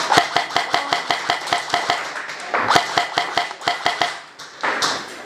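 Airsoft electric rifle firing full-auto in three bursts, a rapid even clatter of about ten shots a second.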